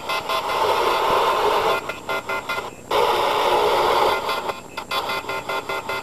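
Telephone off-hook alert tone, several steady tones beeping together about five times a second, heard as audio recovered by a modified X-band doppler radar from a nearby telephone test set. A louder hiss covers the beeping for most of the first four seconds, with a short break near the three-second mark.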